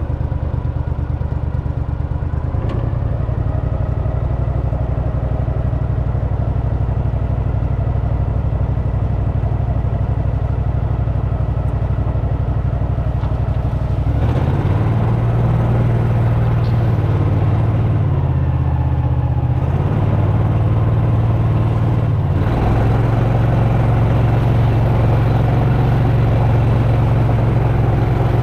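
An engine running steadily under way. Its note shifts and grows louder about halfway through, then shifts again a few seconds later.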